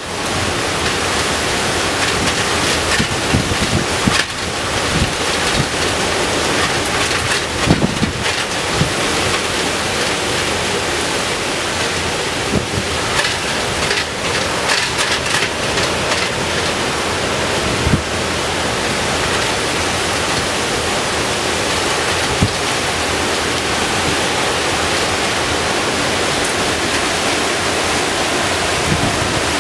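Tropical-storm wind buffeting the microphone over the steady noise of heavy surf breaking, with frequent short gusts knocking on the microphone.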